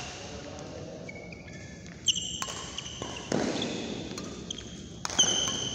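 Badminton rally: a racket strikes the shuttlecock with sharp smacks, about three main hits a second or so apart, amid footwork on the court, echoing in a large hall.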